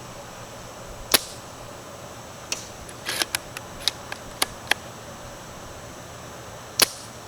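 JG Bar-10 spring-powered bolt-action airsoft sniper rifle, fitted with a Laylax SP190 spring, firing two sharp shots about a second in and near the end. Between them comes a run of smaller clicks and clacks as the bolt is cycled.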